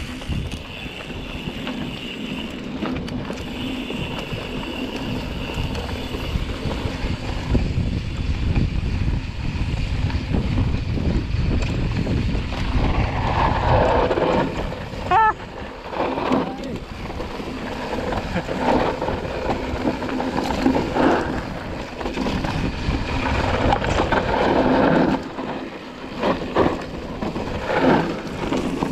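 Mountain bike descending a rocky dirt singletrack: wind rumbling on the handlebar-mounted camera's microphone and the tyres rolling over dirt and stones. In the second half the bike rattles and knocks over rough ground, with a brief squeak midway.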